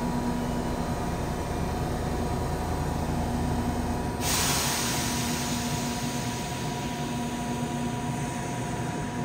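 A subway train standing at the platform with its doors open, its onboard equipment giving a steady hum. About four seconds in, a sudden loud hiss of air starts and keeps going.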